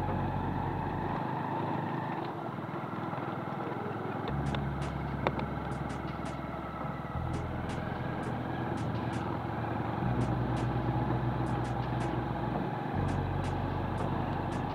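Motorcycle engine running steadily while riding along a dirt road, with scattered small clicks and a sharp click about five seconds in.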